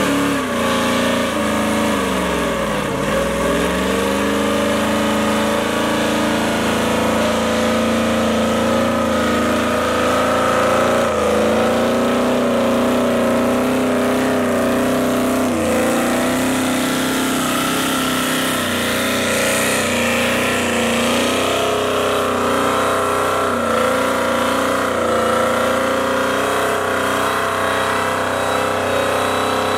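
Supercharged V8 of a modified Ford SVT Lightning pickup (full bolt-ons and cams) held at high revs through a burnout. Its note dips briefly a few times, most deeply about three seconds in.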